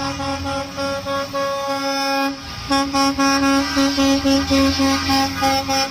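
School bus horns honking as a line of buses drives past. One tone is held for about two seconds, then after a brief break it comes as a string of quick repeated toots, with a low rumble underneath.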